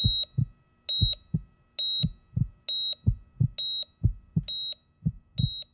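Intro sound effect of a heart monitor: seven short, steady high beeps a little under a second apart, each followed by a low double heartbeat thump.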